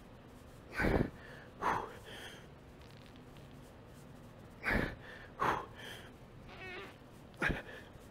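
A man's grunts and forceful exhalations, about five sharp bursts with quieter strained, wavering groans between them, as he grinds out heavy seated dumbbell shoulder-press reps near failure.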